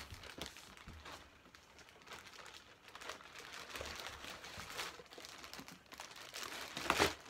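Rustling and crinkling of a bag being handled and stuffed into a packed suitcase, in irregular bursts, with a louder rustle near the end.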